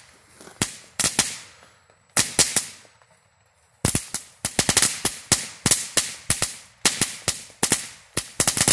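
Dominator Fireworks Crazy Crackler, a small crackling firework, going off with loud sharp cracks and bangs. A few scattered cracks at first, then from about four seconds in a fast, steady run of cracks, several a second.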